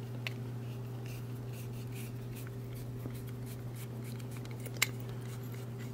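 Phillips screwdriver turning a small retaining screw in a brass padlock body, a Schlage Kryptonite KS43, to free the core: faint scratchy ticks, with one sharper click about five seconds in. A steady low hum runs underneath.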